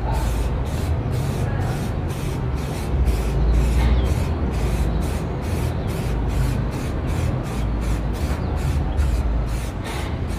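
Aerosol can of high-temperature spray paint hissing as paint is sprayed onto a motorcycle exhaust, over background music with a steady beat of about three pulses a second.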